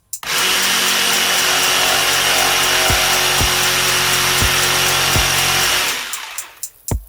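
Electric power saw running steadily through a cut for about six seconds, then winding down and stopping. A faint drum beat of background music continues underneath.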